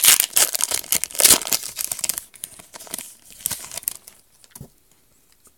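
Foil wrapper of a Pokémon trading card booster pack being torn open and crinkled, loudest in the first two seconds. Sparser, fainter rustles follow and die away near the end.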